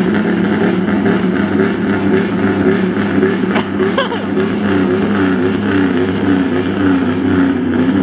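A truck engine idling loudly and steadily close by, without big revs.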